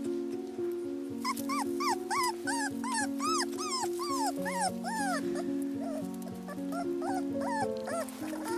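A young puppy whimpering: a run of short, high cries that rise and fall, about two a second, starting about a second in and growing fainter after about five seconds. Background music with steady held notes plays underneath.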